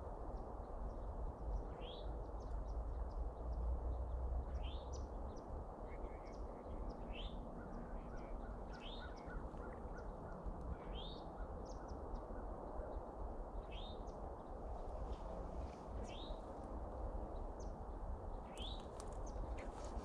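A small bird calling over and over, short upward-rising notes every second or two, over a steady rush of wind on the microphone. There is a little rustling near the end.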